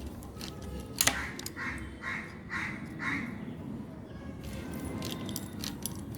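Metal clicks and short squeaks as a Remington typewriter's mainspring tension is wound up by hand: a sharp click about a second in, then four squeaks about half a second apart, and a few more clicks near the end.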